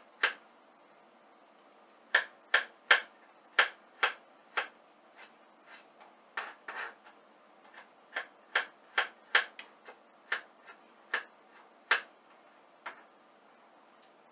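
Kitchen knife mincing ginger on a cutting board: sharp, irregular knocks about two a second, with short pauses between runs of strokes.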